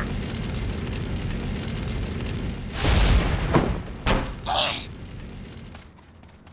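Cartoon sound effects for a power-up as a seal is released: a steady low rumble, a boom about three seconds in and a sharp crack about a second later. The rumble then fades away.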